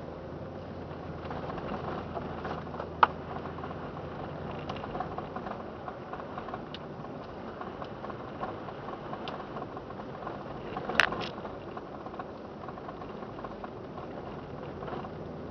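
Car driving slowly on snow-packed road, heard from inside the cabin: a steady rumble of tyres and engine. A sharp knock comes about three seconds in and a quick double knock near eleven seconds.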